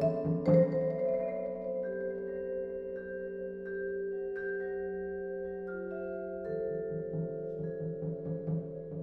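A percussion quartet of marimba, vibraphone and hand drums playing. Quick rhythmic strokes give way to long, ringing held chords, with single higher mallet notes entering over them one after another. Fast repeated strokes come back about six and a half seconds in.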